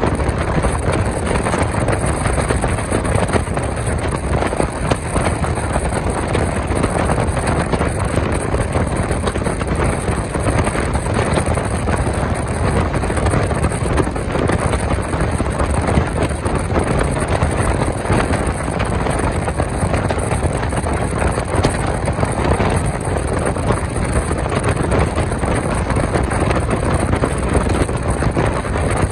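Passenger train running at speed, heard from on board: a loud, steady rumble and rush of wheels on rail and passing air.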